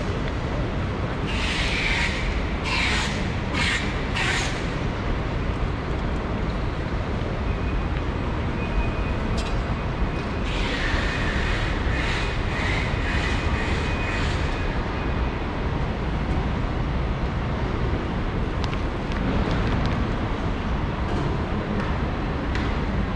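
Steady low rumble of an airport terminal's background noise. Two stretches of hissing stand out, one near the start and another about halfway through, with a faint high tone alongside the second.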